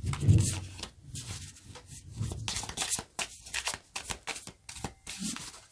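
A thin-cardstock tarot deck being shuffled overhand by hand: a run of quick, irregular card slaps and rustles.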